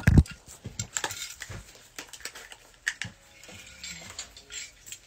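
Irregular small clicks, taps and knocks, with a low thump right at the start.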